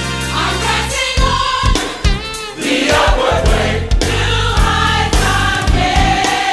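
Gospel choir singing in harmony over a band, with a sustained bass line and drum hits.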